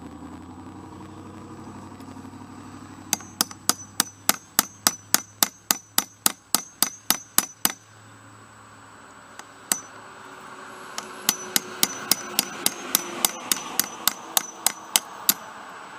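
Claw hammer tapping a steel punch on a small engine's electric starter motor to drive the drive gear off a bad starter. Two quick runs of ringing metallic taps, about four a second, with a single tap between them.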